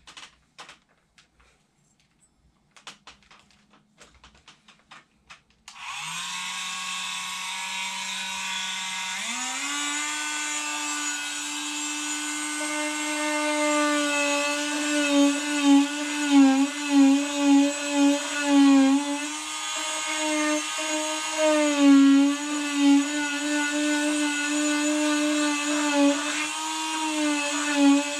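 A small handheld electric blower switches on about six seconds in, blowing onto a hardening cast sock on a foot: its motor whine rises in pitch as it spins up, then runs steadily, wavering in pitch and loudness as it is moved about. Before it come faint clicks and rustles.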